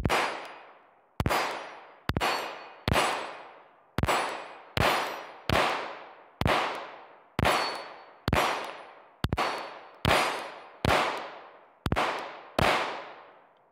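Glock pistol firing fifteen shots one-handed at a steady pace of about one a second, each shot trailing off over most of a second. The magazine runs empty with every round cycling cleanly and no stoppage with the Federal aluminum-cased ammunition.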